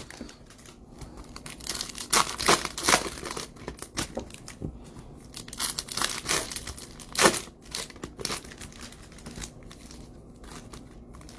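Plastic packaging on trading-card boxes and packs being crinkled and torn by hand, in irregular bursts that thin out near the end.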